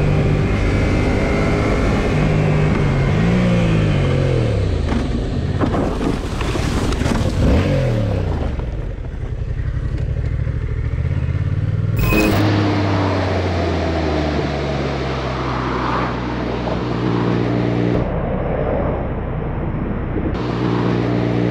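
Motorcycle engine running on the road, its pitch rising and falling as the rider works the throttle and gears. About halfway through it cuts to another motorcycle running at a steadier pitch.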